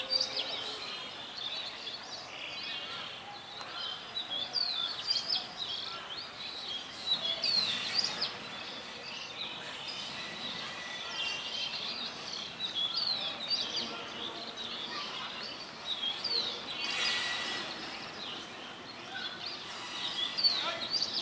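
Birds chirping over a steady background of outdoor noise, with the calls coming in quick clusters that are loudest about seven seconds in and again near the end.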